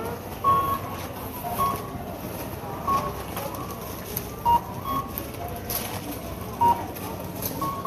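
Supermarket checkout register's barcode scanner beeping as items are scanned: short single beeps at uneven gaps of one to two seconds, a few a little lower in pitch, over the steady hubbub of the store.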